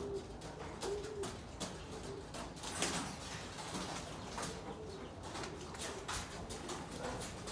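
Young racing pigeons cooing in their loft: a few short, low coos now and then, with scattered soft clicks.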